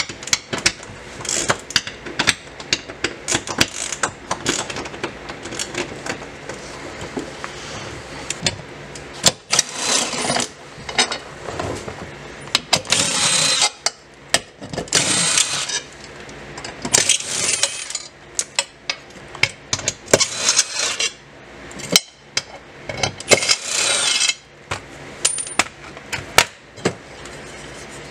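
Metallic clicking of hand tools working T45 Torx bolts on a car's underbody tunnel brace, then a cordless driver spinning the loosened bolts out in about six short runs from about nine seconds in.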